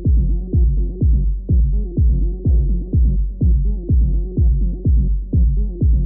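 Techno with a heavy four-on-the-floor kick drum, about two beats a second, under a looping synth line. It sounds muffled, with only the bass and lower mids left.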